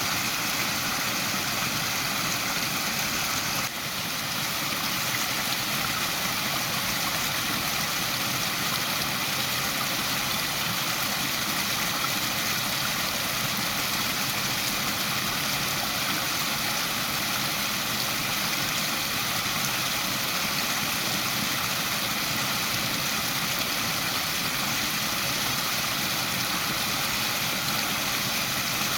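Waterfall: a steady rush of falling water, with a brief drop in level about four seconds in.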